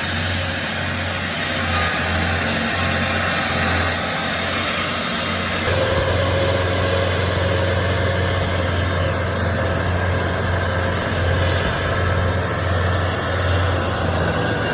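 Large stump grinder running steadily, its engine humming deep under a noisy spread of sound, growing a little louder about six seconds in.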